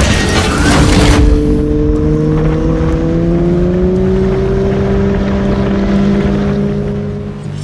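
A four-cylinder motorcycle engine running, its pitch climbing slowly and steadily for several seconds, after a loud rush of noise in the first second.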